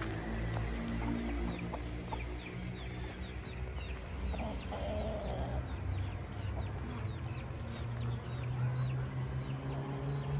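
Chickens clucking and calling, with a steady stream of short, high, falling chirps and one longer lower call about halfway through, over a low steady hum.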